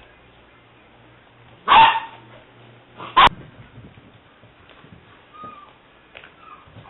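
Seven-week-old English Springer Spaniel puppy barking twice, the first bark about two seconds in and the louder, a second short sharp one a little later, followed by faint whimpering.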